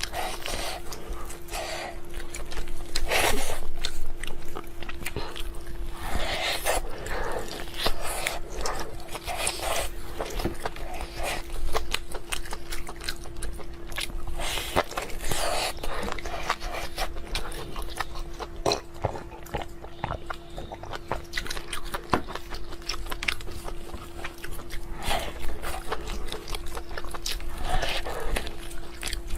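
Close-up eating sounds: irregular biting, chewing and crunching of food, with smacking clicks at an uneven pace, over a steady low hum.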